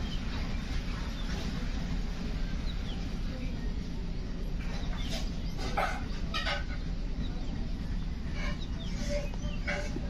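Alexandrine parakeets giving a handful of short clucking calls in the second half, over a steady low hum.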